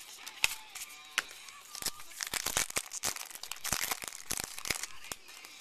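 Baseball cards and their foil pack wrapper being handled close to the microphone: a run of quick crinkling and crackling clicks, densest in the middle.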